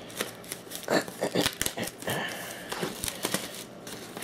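Plastic shrink wrap being peeled and torn off a cardboard box by hand, crinkling and crackling irregularly, with a short squeak of stretched plastic about two seconds in.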